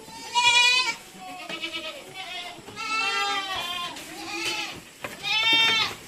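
Several goats bleating again and again, overlapping calls with a wavering pitch, the loudest bleats near the start and near the end.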